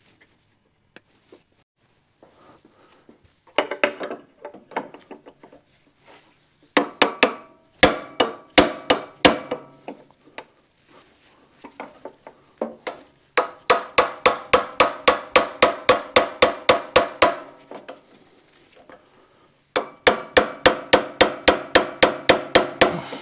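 Rapid hammer blows on metal in several runs of about five strikes a second, each blow ringing, used to free a stubborn stuck part.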